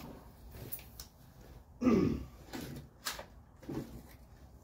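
Rummaging through parts in a workshop: scattered light knocks and clunks, with a brief low grunt about two seconds in, the loudest thing.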